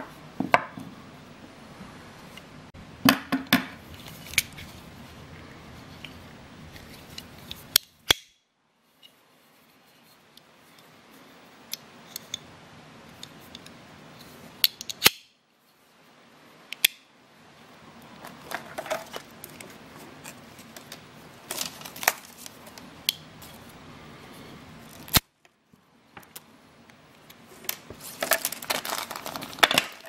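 Leatherman Bond multi-tool being handled: sharp metallic clicks and snaps in clusters as its parts are worked. The sound drops out abruptly three times.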